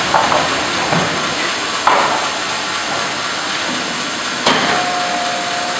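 Horizontal band sawmill line running, a steady noise with three sharp knocks about two seconds apart. A short steady tone comes in near the end.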